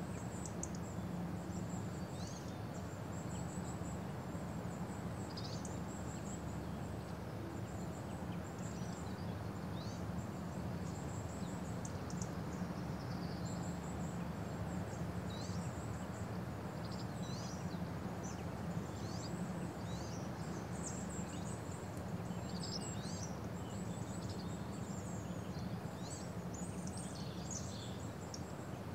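Birds chirping in many short, high calls over a steady low rumble of outdoor ambient noise.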